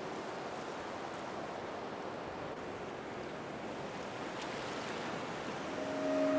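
Steady hiss-like noise. About six seconds in, a held tone with several overtones swells in and grows louder.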